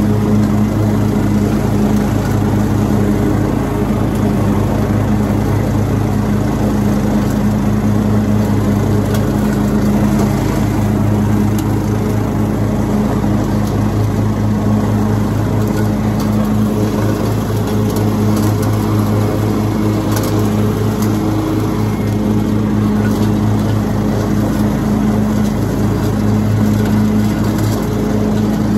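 Riding lawn mower engine running steadily at a constant pitch while the mower picks up dry leaves.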